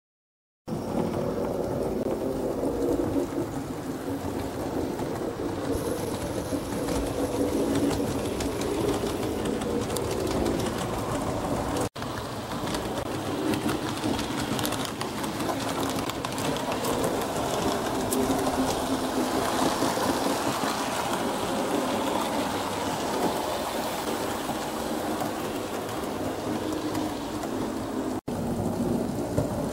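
H0 model trains running on the layout's track: steady motor whir and wheel noise, cut off briefly twice.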